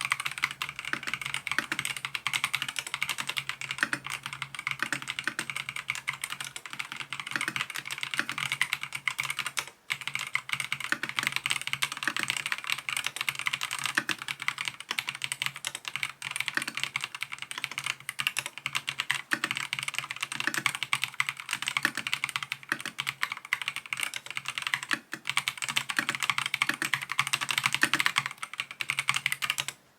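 Fast, continuous typing on an Epomaker TH80-X 75% gasket-mounted mechanical keyboard: a dense run of key clacks with a brief pause about ten seconds in.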